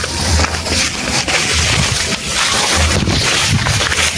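Wind buffeting the microphone: a steady rushing hiss with low thumps every second or so.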